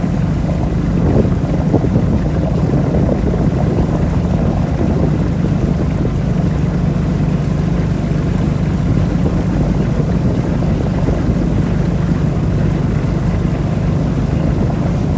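Boat engine running steadily under way, with wind buffeting the microphone.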